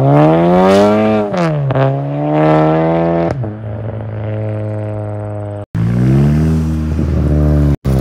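Turbo-swapped VW MK6 GLI's turbocharged four-cylinder under full-throttle acceleration: the revs climb, drop back on an upshift about a second in, and climb again. After that the sound settles to a steadier, lower engine note. The audio briefly cuts out twice, with a renewed rise in revs between the cuts.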